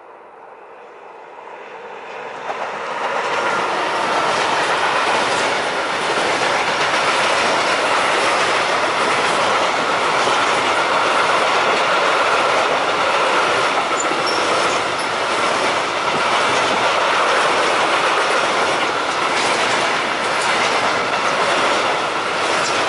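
Freight train of Tagds hopper wagons rolling past across a bridge, the wheels clattering over the rail joints with a steady high-pitched squeal. It grows louder over the first three seconds as the wagons come onto the bridge, then holds steady.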